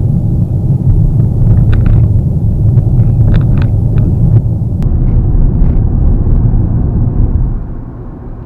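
Steady low rumble of road and tyre noise inside a Mitsubishi Xpander's cabin at highway speed, its doors fitted with added rubber seals against wind noise; a few faint ticks about two to four seconds in, and the rumble gets quieter near the end.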